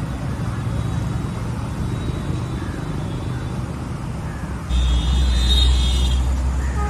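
Road traffic noise: a steady low rumble of passing vehicles. About two-thirds of the way in it turns suddenly louder, with a high whine for about two seconds.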